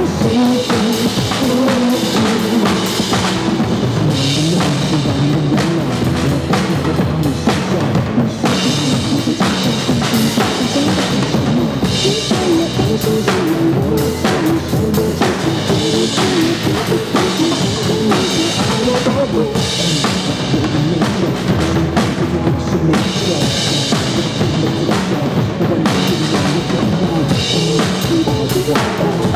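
Drum kit played along with a recorded song: a steady beat of kick drum, snare and cymbals over the music, without a break.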